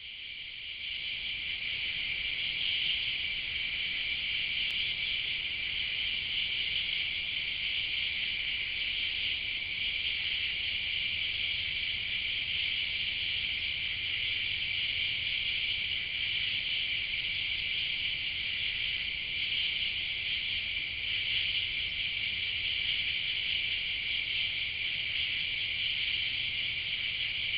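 Steady, continuous chorus of night insects in summer woodland, a high shrill drone that holds level without a break.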